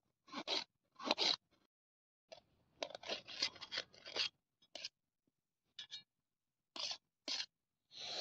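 Knife cutting raw onion on a steel plate: short crisp crunching strokes, with a quick run of them about three seconds in, then single strokes about a second apart.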